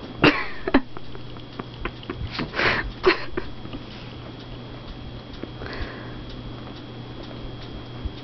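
Yorkshire terrier making short sniffs and snorts while rolling and wriggling on its back on carpet. There are two sharp ones at the start, a quick run of about three a couple of seconds later, and a fainter one past the middle, over a steady low fan hum.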